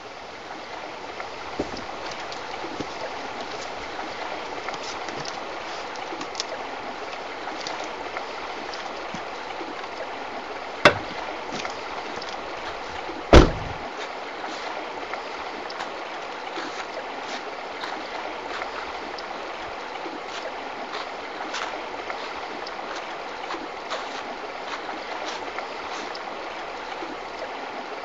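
Shallow river running over stones: a steady rush of water with small splashes and clicks. Near the middle come two sharp knocks about two and a half seconds apart, the second louder with a low thud.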